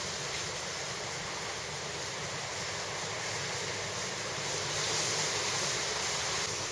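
Steady rushing wind noise, swelling a little about five seconds in.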